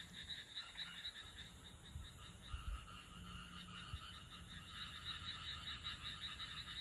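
Frogs calling in a chorus: many faint, rapid pulsing croaks overlapping at different pitches.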